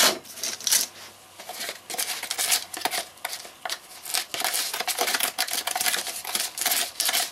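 Dry concrete mix of Portland cement, recycled glass and metakaolin being stirred with a stick in a small plastic tub: quick, irregular scratchy scraping strokes, several a second.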